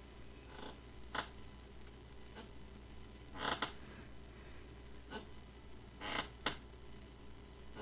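A person sniffing and breathing through the nose in short, separate bursts every second or so, with a few sharp little clicks among them, over a faint steady hum.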